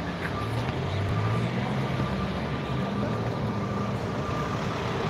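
A car running slowly close by, a steady low engine hum over street noise.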